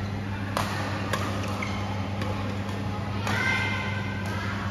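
Badminton shuttlecock being struck by rackets: sharp hits at irregular intervals, about six of them. A shoe squeaks on the court floor for about a second in the later part, over a steady low hum.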